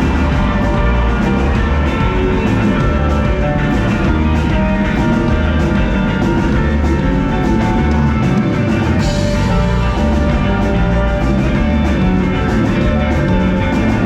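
Loud rock music: a drum kit keeping a steady beat under guitars, with cymbals coming in brighter about nine seconds in.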